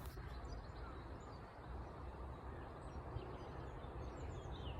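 Faint outdoor ambience: a steady low rumble of background noise with a few faint, scattered bird chirps.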